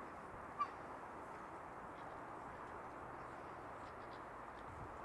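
Steady outdoor background hiss with a single short, sharp bird chirp about half a second in, and another at the very end.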